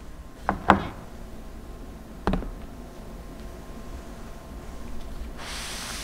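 Plastic food storage containers being handled and set down on a counter: two quick knocks about half a second in, a softer knock a little after two seconds, then a brief rubbing hiss near the end.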